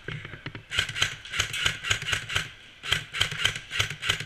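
Airsoft gun firing two strings of rapid shots, about six a second, with a short break between them.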